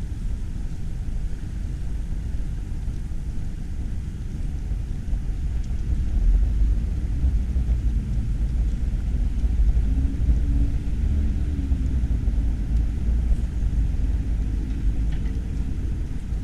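Outdoor ambience: a steady low rumble that grows stronger about six seconds in, with a faint hum rising out of it around ten seconds in.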